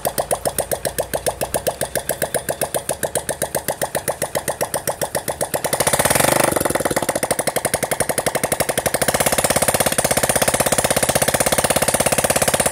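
Hero HF Deluxe's freshly rebuilt 97 cc single-cylinder four-stroke engine running with no exhaust pipe or silencer fitted, each firing pulse popping straight from the open exhaust port at about seven a second. About six seconds in the throttle is blipped, and it settles into a faster, steady beat.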